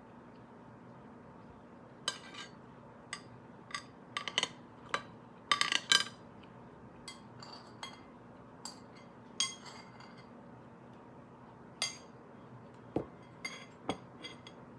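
Metal spoon clinking and scraping against a plate: a string of sharp, ringing clinks starting about two seconds in, the loudest cluster a few seconds later.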